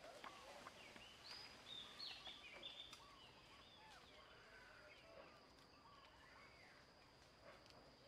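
Faint outdoor ambience: a quick cluster of short chirping calls in the first few seconds, then scattered ones, over a steady high-pitched tone.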